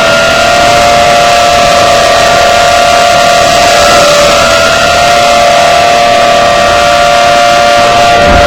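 Warning siren being tested, running at a steady pitch with two close tones sounding together, very loud; the pitch wavers slightly about halfway through.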